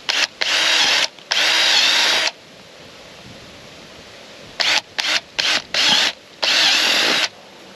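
Cordless drill with a twist bit boring holes through the wall of a black flexible plastic pipe, run in bursts: a few runs in the first two seconds, a pause, then several quick trigger blips and a longer run near the end.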